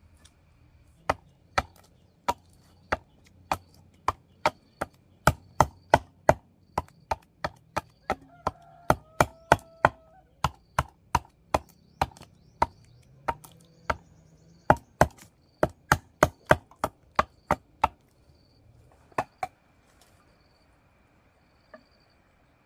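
Repeated chopping strokes with a blade, sharp and evenly paced at about two a second, in a long run with a short pause around fourteen seconds in and a few last strokes near the end.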